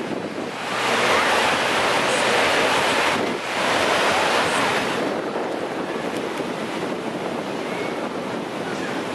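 Ocean surf washing onto a sandy beach: a steady rush of breaking waves that swells louder twice in the first five seconds, then settles into an even wash.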